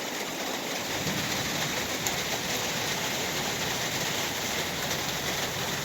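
Heavy rain pouring down steadily in a thunderstorm downpour, an even hiss of rain on surfaces.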